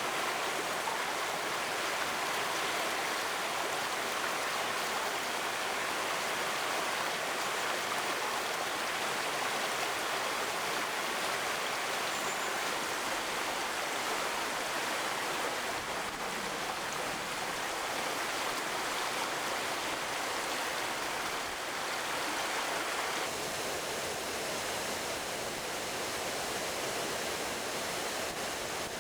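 River water rushing steadily over rocks at a waterfall, an even, unbroken rush.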